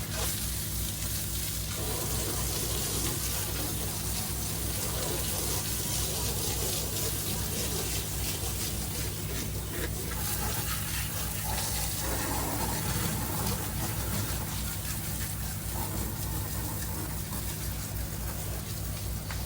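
Water spraying from a soft wash system's hose, over the steady pulsing hum of its pump.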